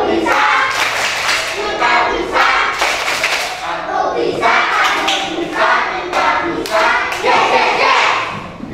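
A class of young children clapping in rhythm while chanting together in unison: a 'tepuk' clapping chant led by the teacher.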